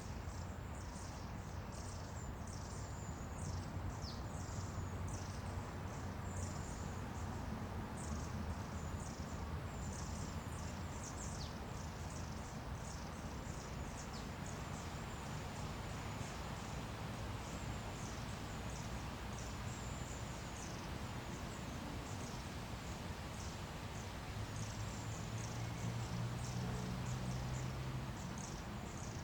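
Outdoor nature ambience: many short, high chirps repeating irregularly throughout, over a low steady rumble.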